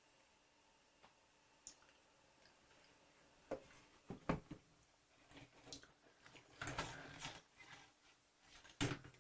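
Handling of plastic model kit parts trees: quiet for the first few seconds, then scattered sharp clicks and rustles, the loudest about four seconds in and again near the end.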